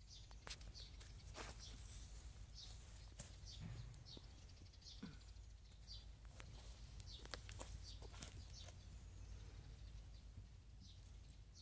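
Near silence: a faint low hum with scattered small clicks and brief high chirps.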